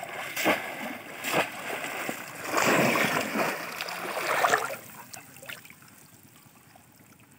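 Shallow water splashing as a conical bamboo polo fish trap is plunged down into a flooded field: a couple of sharp splashes, then a longer churning splash that dies down about five seconds in.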